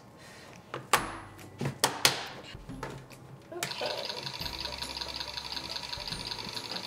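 A few sharp plastic clicks and knocks as a snap-lock lid is pressed onto a plastic food container. Then, about three and a half seconds in, the motor of a small electric stand mixer starts and runs with a steady whir.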